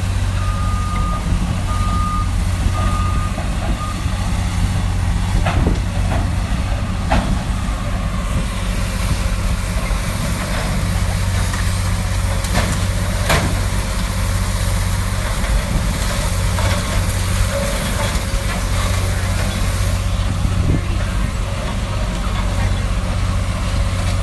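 Heavy diesel demolition machinery running with a steady low drone, its reversing alarm beeping four times in the first few seconds. A few sharp knocks and cracks come through later.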